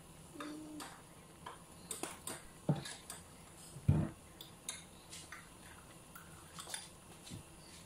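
Chicken simmering in soy-sauce liquid in a stainless steel pan, the sauce bubbling with scattered irregular pops and crackles. A louder knock comes about four seconds in.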